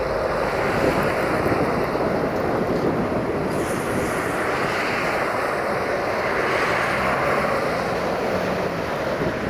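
Romanian 060-DA (LDE2100) Sulzer diesel-electric locomotive running steadily as it hauls a freight train slowly past, with wind noise on the microphone.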